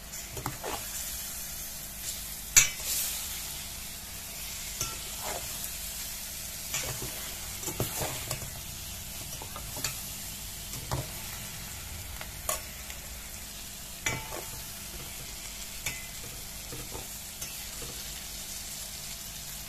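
Fish pieces frying in oil and onion-spice paste in a stainless steel pot, sizzling steadily while a metal ladle stirs and scrapes, knocking against the pot's side every second or so; the sharpest knock comes about two and a half seconds in.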